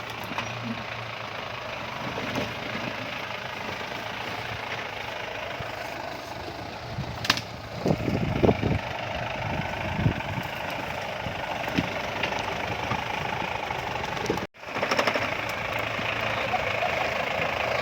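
Daihatsu Taft 4x4's swapped-in Toyota Dyna truck diesel engine running steadily, with a cluster of thumps and knocks about eight to ten seconds in. The sound cuts out for an instant about fourteen seconds in.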